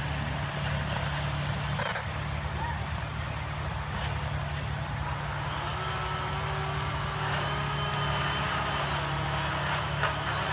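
A steady low mechanical hum, like an idling motor, with faint distant voices calling out over it, mostly in the second half.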